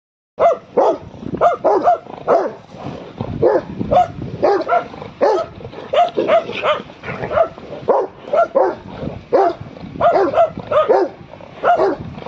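Rottweiler barking over and over, about two barks a second.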